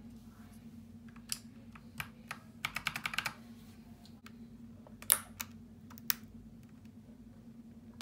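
Keys of an Akko 3098 mechanical keyboard with Akko CS Ocean Blue tactile switches clicking under the fingers: a few single presses, a quick run of presses about two and a half seconds in, then a few louder, sharper plastic clacks about five to six seconds in.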